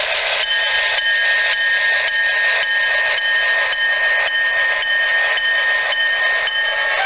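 Electronic model-train bell sound ringing steadily, just under two strokes a second, as an HO scale passenger train rolls past.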